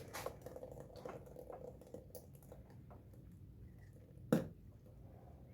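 Faint, scattered light clicks and taps over quiet room noise, with one sharper knock about four seconds in.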